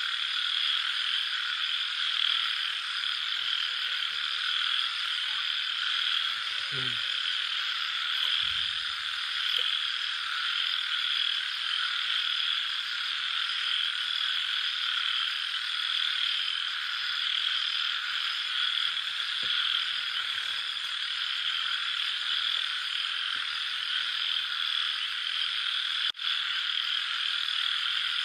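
Dense, steady night-time chorus of small calling animals that never lets up. About seven seconds in there is a faint, short low sound that falls in pitch, and near the end the sound cuts out for an instant.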